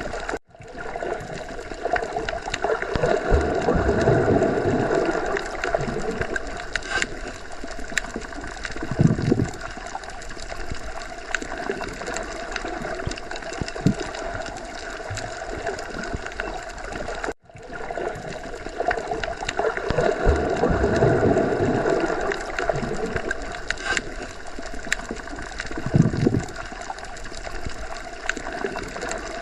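Underwater ocean ambience: a muffled, steady water wash that swells and subsides, with occasional gurgles. It is a loop that repeats about every 17 seconds, with a brief gap in the sound about half a second in and again about 17 seconds in.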